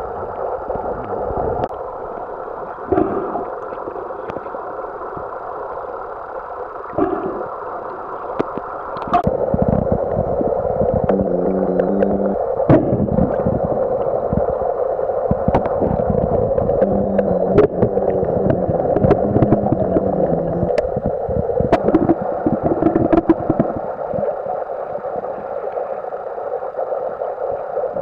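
Underwater lake ambience heard through a submerged camera: a steady muffled hiss with scattered sharp clicks, growing louder and deeper about nine seconds in, with a low wavering hum coming and going.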